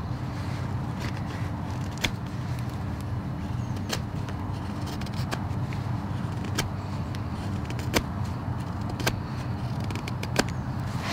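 Straight carving knife paring shavings from the bowl of a green-wood spoon in push cuts, with several sharp crisp clicks a second or so apart as cuts finish, over a steady low rumble.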